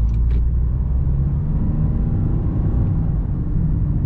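Inside the cabin of a Toyota Sienta with its 1.5-litre three-cylinder petrol engine, driving at town speed: a steady low rumble of road and tyre noise with a faint engine hum running through it.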